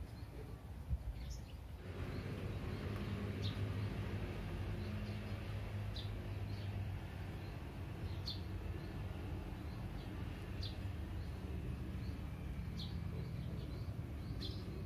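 A bird repeating a short, high call about every two seconds, over a steady low hum that comes in about two seconds in.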